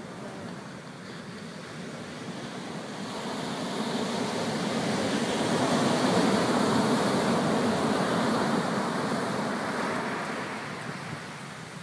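Sea surf breaking and washing up a sandy beach. The noise of the surf swells to its loudest around the middle as a wave breaks and runs up the sand, then fades again.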